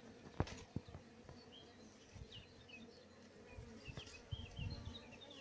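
Honeybees humming steadily from an opened hive, with a few sharp knocks and thumps, and faint short high chirps in the background.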